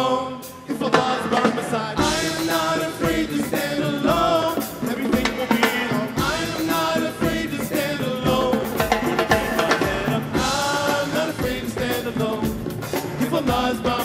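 Live music: male voices singing together over a drum kit and hand percussion.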